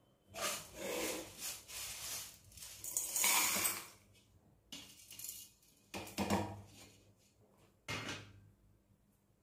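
Dry-roasted chana dal, urad dal, red chillies and curry leaves tipped from a steel plate into a steel mixer-grinder jar, the grains rattling and scraping against the steel for about three and a half seconds. A few short clinks of steel on steel follow.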